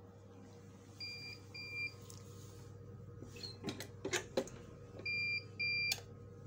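Heat press's digital control box beeping: two short high beeps about a second in and two more near the end, with a few sharp clicks and knocks of the press being handled in between.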